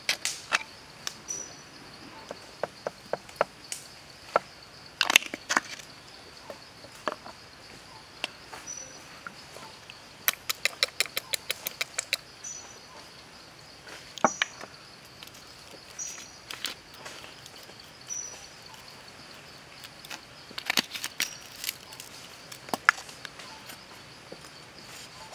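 Hand-work sounds of preparing a green bamboo cooking tube: scattered light clicks and knocks, with a quick run of about a dozen ticks near the middle as a small bottle of seasoning is shaken into the tube. A steady high insect drone and a few short high chirps go on underneath.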